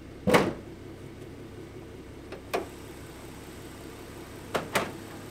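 A 2014 Ford Mustang's hood being unlatched and raised: a loud clunk a moment in, a lighter click about two seconds later, and two quick clicks close together near the end. Under them runs a steady low hum.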